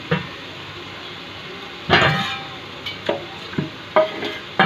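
Spoon stirring ridge gourd (turai) sabzi in a cooking pan over a steady sizzle, with several knocks and scrapes against the pan and a louder clatter about two seconds in.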